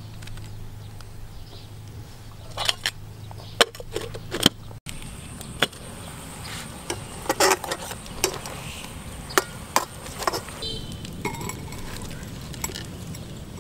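Scattered clicks and knocks of ingredients and cookware being handled: herbs and ginger dropped into a metal pot, and a clay jar tipped over a bowl. They sit over a steady low hum.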